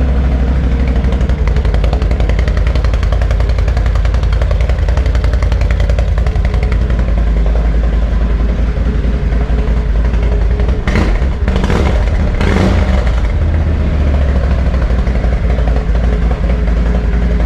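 A 2020 Can-Am Outlander XMR 850 ATV's V-twin engine idling steadily through its stock muffler just after a cold start, not revved. The idle sounds pretty beefy.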